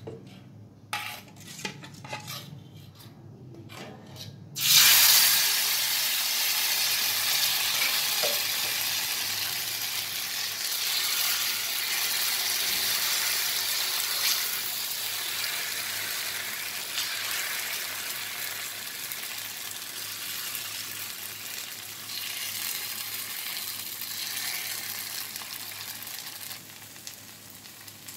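A few light clinks of a utensil. About four and a half seconds in, wheat-flour batter meets a hot iron tawa oiled with mustard oil and starts sizzling loudly at once. The sizzle goes on, slowly fading as the pancake cooks, and gets quieter near the end.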